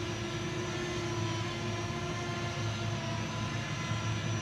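Fimi X8 Mini quadcopter's propellers humming steadily as it descends to land on automatic return-to-home, a whine of several steady pitches that stays even throughout.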